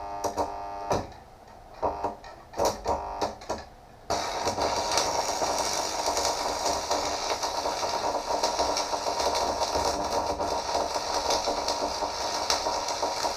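A few ringing clinks of steel, then about four seconds in a welding arc strikes and runs with a steady hiss.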